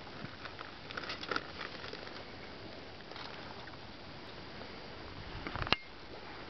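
Faint steady hiss with scattered small clicks and rustles, and one sharp click a little before the end: the handling noise of a handheld camera being panned.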